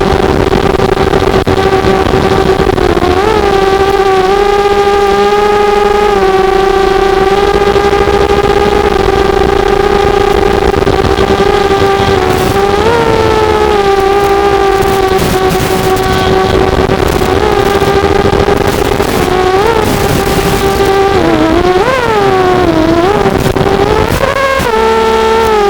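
Quadcopter's four small brushless motors and propellers whining at a steady pitch, swooping briefly up and down in pitch several times as the throttle changes, most sharply near the end.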